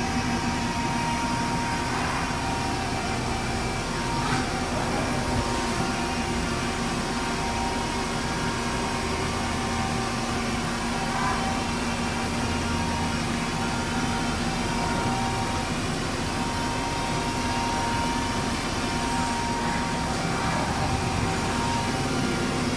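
Steady machine hum of a powered-up Mazak Multiplex W-200 CNC turning center, with a few steady whining tones. The highest tone drops out and comes back several times.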